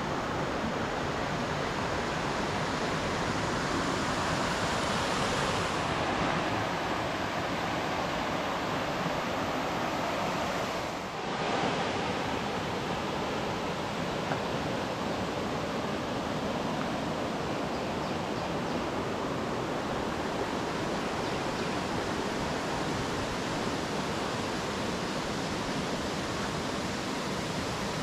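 Mountain creek rushing over rocks and a small cascade, a steady, even roar of water that dips briefly about a third of the way through.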